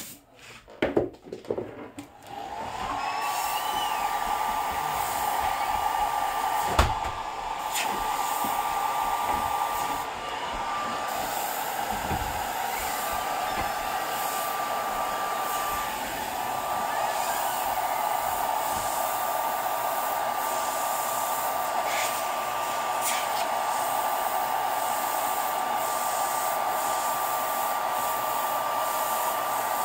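Handheld hair dryer switched on about two seconds in, its whine rising as the motor spins up, then blowing steadily with a high motor whine over the fan noise, drying freshly airbrushed paint on a T-shirt. A few handling knocks come just before it starts.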